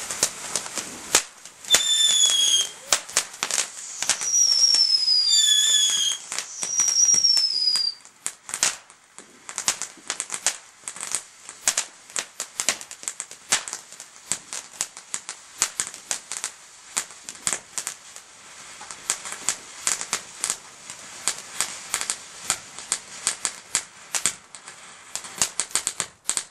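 Ground fountain firework spraying sparks with dense crackling, and four short whistles that slide down in pitch in the first eight seconds. After that it goes on as a quieter stream of sharp crackles.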